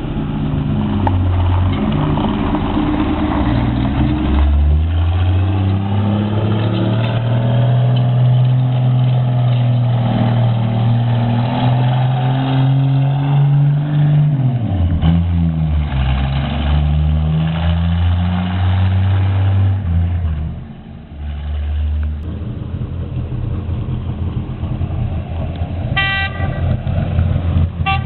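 A small vehicle engine running under load, its pitch climbing slowly, dropping about halfway through, then rising again. A brief horn toot sounds near the end.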